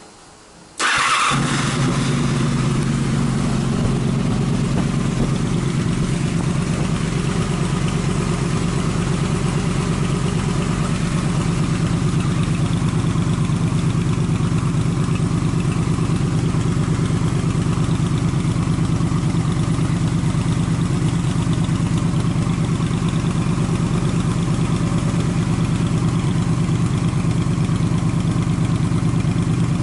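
Honda VFR800's V4 engine through a Delkevic SS70 aftermarket exhaust, starting about a second in and then idling steadily.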